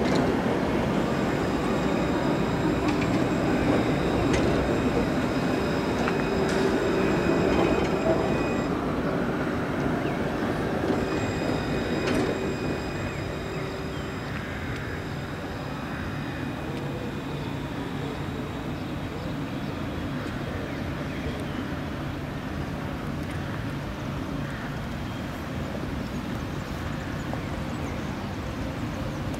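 Alstom Citadis tram passing close by on grassed track: a rolling rumble with high, thin, steady tones over it during the first dozen seconds, then fading to a lower, steady rolling sound as it moves away.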